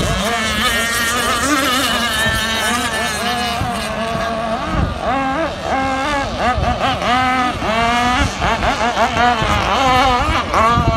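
Several radio-controlled racing powerboats' engines whining at high revs, their pitch swooping up and down again and again over a steady lower drone, with more frequent swoops in the second half.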